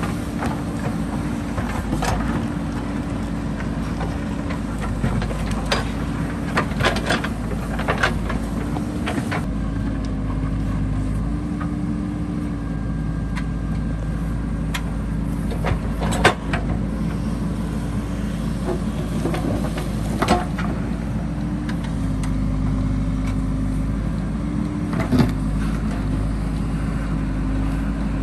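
JCB 3DX backhoe loader's diesel engine running steadily under working load, its pitch stepping up and down slightly, with scattered sharp knocks and clanks. The loudest knock comes about halfway through.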